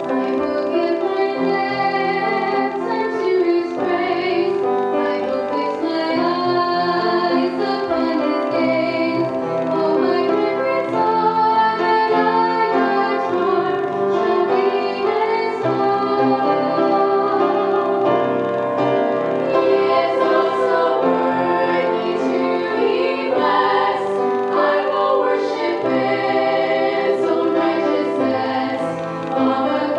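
Women singing a gospel song into microphones over instrumental accompaniment, heard through the church's sound system.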